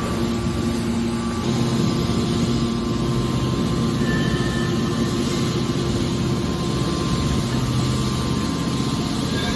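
Scrap metal baler shear running with a steady low mechanical hum, a little louder from about a second and a half in.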